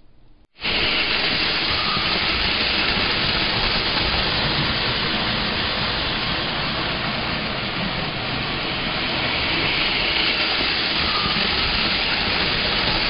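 Lionel electric model train running along metal layout track: a steady, noisy rumble of wheels and motor that starts abruptly about half a second in.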